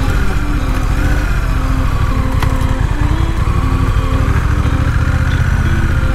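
Honda Rebel 1100's 1084 cc parallel-twin engine and exhaust pulling at low road speed as the bike gathers pace, the engine note rising, dipping about halfway through, then rising again.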